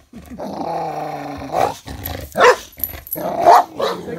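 Boxer dog play-growling and barking with a ball in his mouth: one long held growl, then three loud barks.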